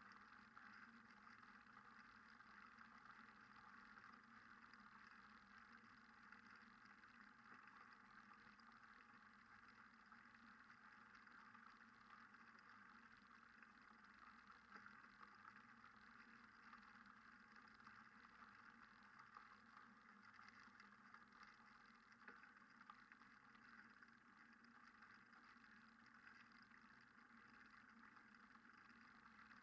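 Near silence: only a faint, steady background noise.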